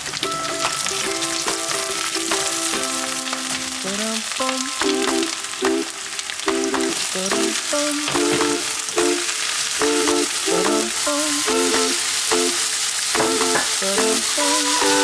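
Food sizzling as it fries in a pan, a steady hiss, with background music playing a melody over it.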